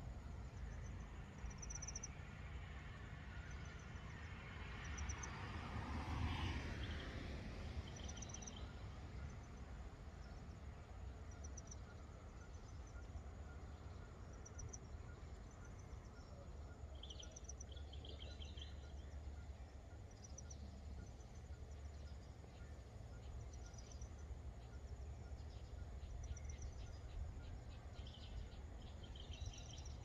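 Faint outdoor ambience: a steady low rumble with short, high chirps that recur every few seconds. A rushing swell rises and fades about six seconds in.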